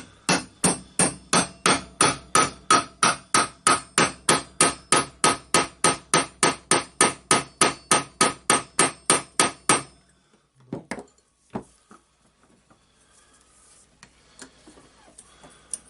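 Hammer striking metal in a steady run of about thirty ringing blows, about three a second, for some ten seconds, then stopping. A few faint knocks follow. The blows are an attempt to punch a stuck armature out of an orbital sander.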